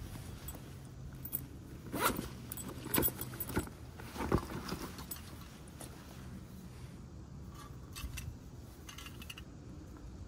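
Handling of a canvas gear bag, with a zip and fabric rustling, and a few sharp metallic clinks as a stainless steel hip flask is taken out and turned in the hands. A low steady hum runs underneath.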